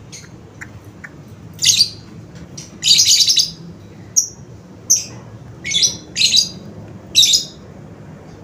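Bird chirping: a series of short, high calls, about seven in all, roughly one a second, one of them longer near the middle.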